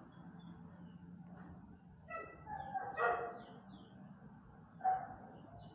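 Dog barking: a quick run of barks about two seconds in, then a single sharp bark near the end.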